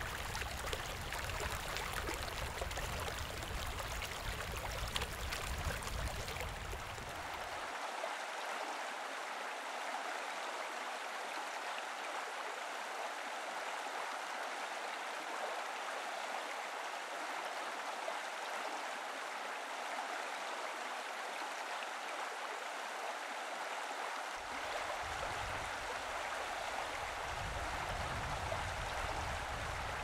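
Steady, even wash of moving water at the shore, with no bird calls standing out. A low rumble under it drops away about eight seconds in and comes back about six seconds before the end.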